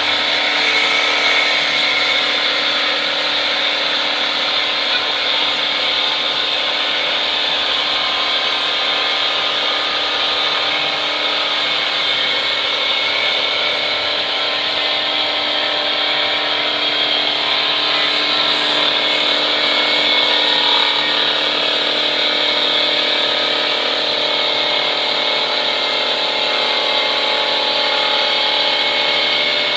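Automatic wood lathe running and cutting a wooden workpiece: a loud, steady machine hum under a continuous rasping cutting noise.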